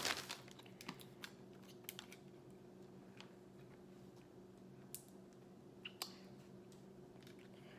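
Faint handling sounds: a few light clicks and taps as a pair of plastic sunglasses is unfolded and put on, over a low steady hum.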